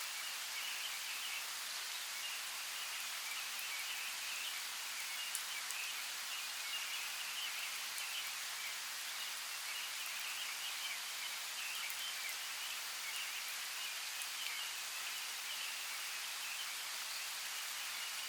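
Light rain falling on forest leaves: a steady, even hiss with now and then a single drop ticking, and birds twittering steadily behind it.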